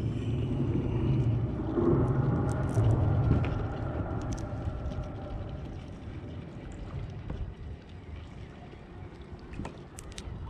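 Low motor rumble from a passing vehicle, strongest in the first few seconds and then fading, with a few faint clicks.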